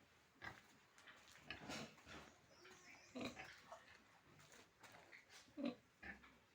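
Pigs grunting in a handful of short, irregular bursts, the loudest a little before the end.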